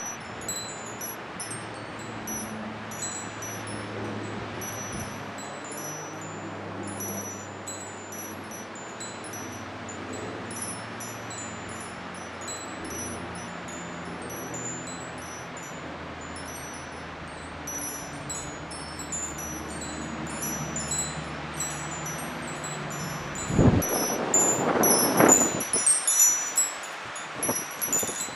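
Wind chimes tinkling irregularly as the wind stirs them, over a steady rush of wind. Stronger gusts hit the microphone in the last few seconds.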